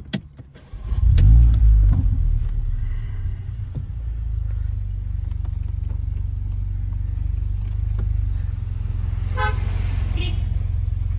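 Mercedes-Benz car's engine running, heard from inside the cabin, louder for about a second near the start and then steady. Near the end the car horn sounds twice in short honks.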